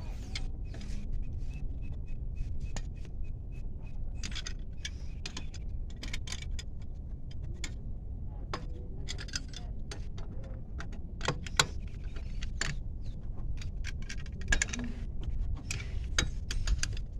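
Irregular metallic clicks and clinks of car wheel bolts and a 19 mm wrench being handled as the bolts go back onto the wheel, over a low steady background rumble.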